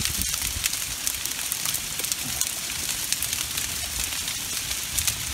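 Heavy rain and hail falling on rock and brush: a steady hiss dotted with many quick sharp ticks of hailstones striking.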